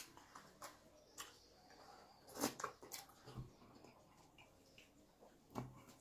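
Near silence with a few faint, short clicks and soft knocks scattered through it. The loudest comes about two and a half seconds in.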